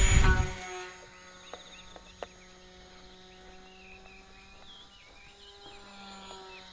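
Small electric motor and propeller of a sub-100 g tethered RC plane spinning up with a quickly rising whine, loud for the first moment, then running steadily and much fainter as the plane flies around on its tether.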